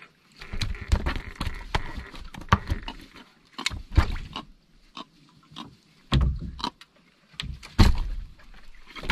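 Irregular knocks, taps and thuds on a wooden boat deck as a freshly caught trevally is brought aboard on a handline and unhooked, with a few heavier thumps in the second half.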